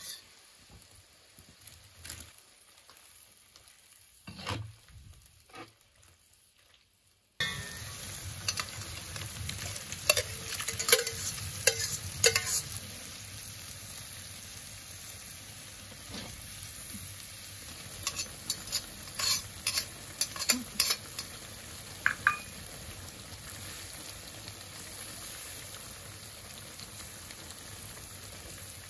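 Eggplant and tomato sauce sizzling and bubbling in a cast-iron kazan while a metal skimmer stirs it, clicking and scraping against the pot in two clusters of strokes. The first seven seconds are quiet with a few light knocks; the steady sizzle starts suddenly after that.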